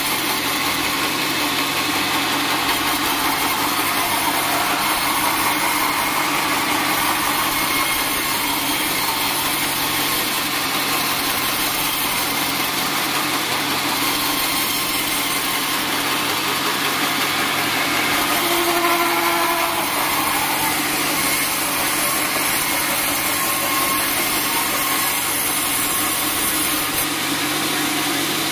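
Band sawmill running steadily while sawing a teak log, a loud even machine noise with a low hum underneath. A brief higher squeal comes about two-thirds of the way through.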